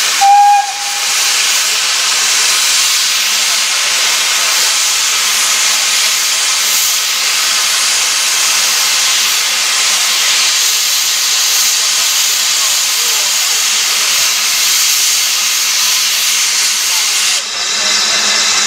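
Steady, loud hiss of escaping steam from a steam locomotive, after a brief whistle note about half a second in; the hiss thins near the end.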